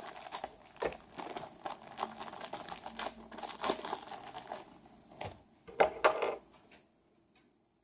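Packaging crinkling and tearing as a toy's accessory bag is opened by hand, dense crackling that ends with a few louder crinkles and then stops near the end.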